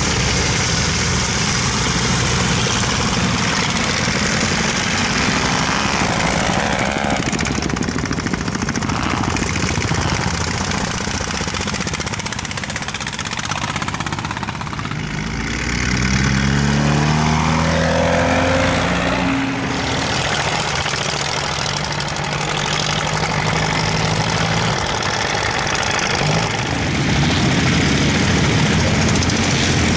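Vintage farm tractor engines running hard as old tractors race past on a dirt track. About sixteen seconds in, one engine's pitch rises as it speeds up, then holds steady for several seconds.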